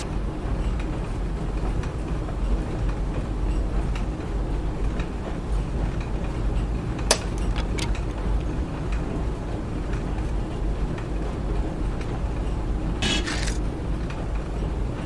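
Steady low hum and rumble of moulding-press machinery running in the workshop. There is a sharp click about seven seconds in and a short hiss near the end.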